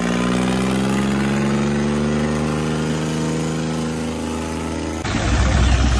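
Diesel tractor engine running steadily, its pitch creeping up slightly over about five seconds. Near the end the sound changes abruptly to a louder, rougher, lower engine rumble.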